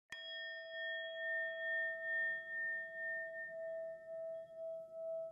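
Singing bowl struck once near the start, ringing on in a long steady tone that slowly wavers.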